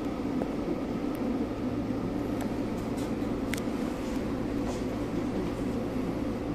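Steady low hum of a local train's running equipment, heard inside the carriage while the train stands at a station platform, with a few faint clicks.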